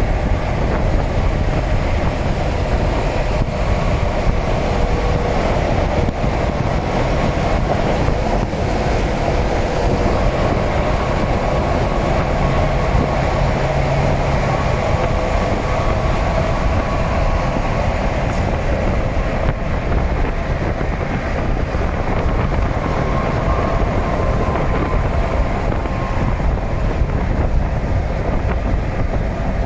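Freight train rolling past, a steady rumble of wagons running on the rails with a few faint held tones above it.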